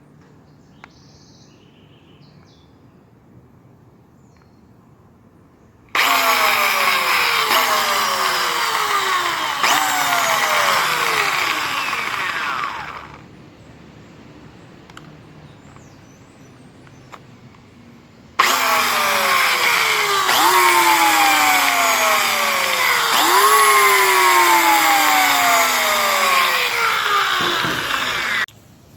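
Black and Decker electric drill motor running in two long bursts, its whine repeatedly jumping up and sliding down in pitch as the speed rises and falls. The first run starts about six seconds in and lasts about seven seconds; the second starts near the middle and runs about ten seconds.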